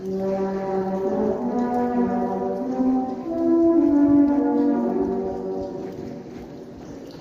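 Trombone playing a slow melody of held notes inside a long brick railway tunnel, growing louder midway and fading near the end.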